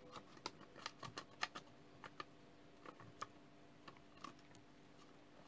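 Faint, irregular small ticks and scrapes of a glue stick being rubbed over folded origami paper.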